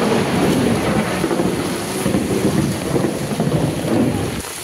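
Heavy rain with a loud, uneven low rumble of thunder. It starts suddenly and cuts off suddenly near the end.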